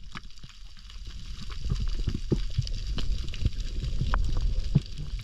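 Underwater reef ambience: a steady crackle of snapping shrimp over a low rush of water, with a few sharp knocks as a band-powered speargun is fired at a fish.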